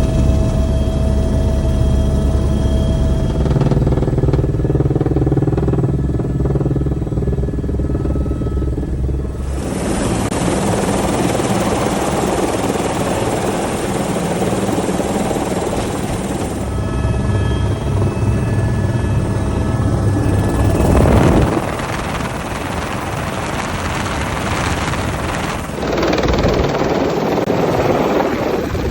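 Helicopter running: a steady low rotor beat in some stretches and a loud rushing wash in others, changing abruptly several times as shots cut.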